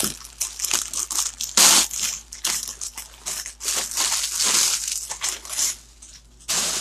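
Packaging rustling and crinkling in irregular bursts as a plush costume is pulled out of a cardboard box and handled, loudest about two seconds in and again near the middle.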